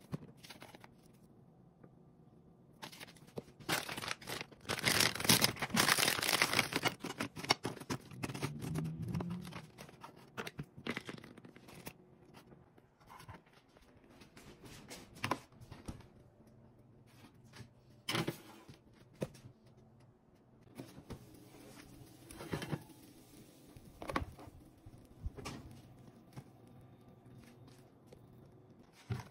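Food-prep handling sounds: a few seconds of loud rustling, tearing-like noise about four seconds in, then scattered clicks and knocks.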